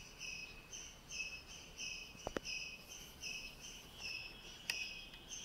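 Crickets chirping steadily, about two short chirps a second, with a faint click about two seconds in and another near the end.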